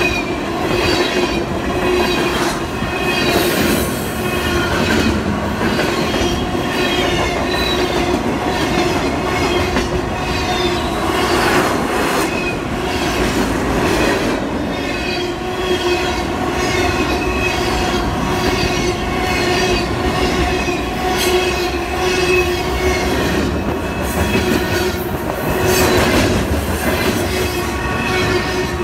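Freight cars of a passing train rolling by close at hand: a steady rumble of steel wheels on rail, with a wavering wheel squeal and now and then a sharp clack as the wheels cross rail joints.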